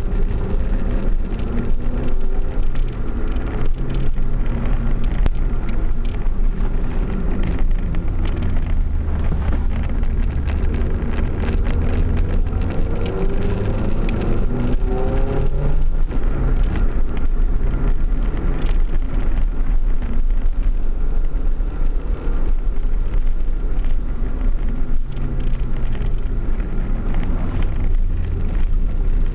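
Car engine and road noise heard from inside the cabin while driving, the engine's pitch rising and falling, with a long rise in revs about halfway through.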